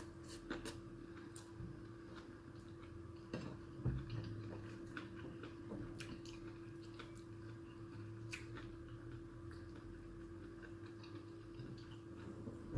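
Quiet eating sounds: faint chewing with scattered small clicks, over a steady faint hum.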